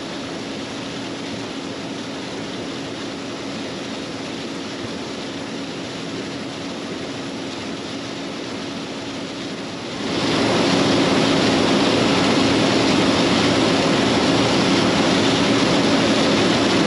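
John Deere 9500 combine running under load while harvesting corn: a steady machine drone with a constant hum, which gets markedly louder and harsher about ten seconds in.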